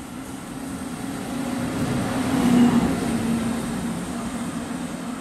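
JR EF64 1000-series electric locomotive running light past at close range: a steady low hum with wheel-on-rail noise that swells to its loudest about two and a half seconds in, then fades as it moves away.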